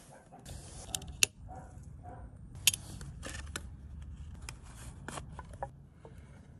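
A cut aluminium drink can and a clear plastic bottle being handled and fitted together: thin metal and plastic crinkling and scraping, with a string of sharp clicks and taps, the loudest about one and three seconds in.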